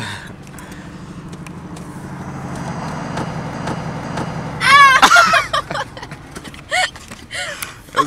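A motor vehicle engine runs close by, growing louder over the first few seconds. About five seconds in, loud high-pitched laughter breaks out and carries on in short bursts.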